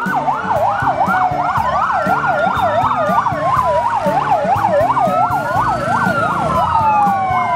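Fire engine sirens sounding together: a fast yelp warbling up and down about four times a second over a slower wail that rises and falls over several seconds.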